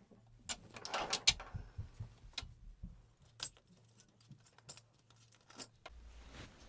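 Loose metal Allen keys clinking and rattling against each other as they are sorted through: a scatter of sharp clinks, busiest about a second in, then sparser.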